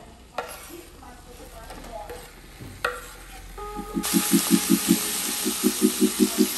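Diced beef is scraped off a wooden cutting board into a pot, with a couple of light knocks. About four seconds in, a steady sizzle of the meat frying starts as it is stirred, alongside a low, evenly pulsing beat.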